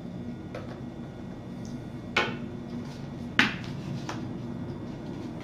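Small sharp clicks of a screwdriver working the screws in the plastic bottom panel of an Asus 1000HE netbook: two louder clicks a little over a second apart, with fainter ones before and after, over a faint steady hum.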